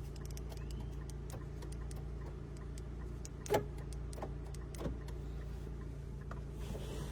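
Scattered light clicks and ticks over a steady low hum, with a sharper click about three and a half seconds in.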